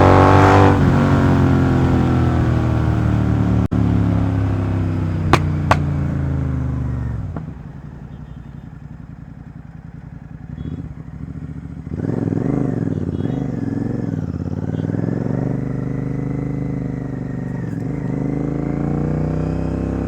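Royal Enfield GT 650's 648 cc parallel twin through a Red Rooster Performance exhaust, ridden on the road. The revs fall off over the first several seconds with two sharp pops on the overrun about five seconds in, the popping caused by its Code 6 tune. After a quieter few seconds the engine pulls away again, its pitch rising and falling through the gears.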